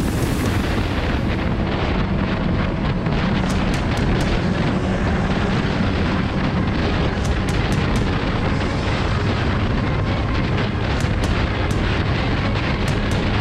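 Steady wind buffeting on an onboard camera microphone while riding a motorcycle at road speed, with the Benelli 302S's engine running underneath and short crackles from the wind.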